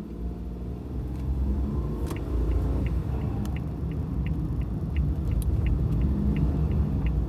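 Car cabin while driving: a steady low road and engine rumble. From about two seconds in, a light high tick repeats about three times a second.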